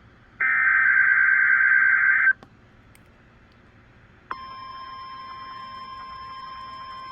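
A loud buzzy burst of emergency-alert digital data lasting about two seconds, then, about four seconds in, the steady single-pitch NOAA Weather Radio 1050 Hz warning alarm tone starts and holds.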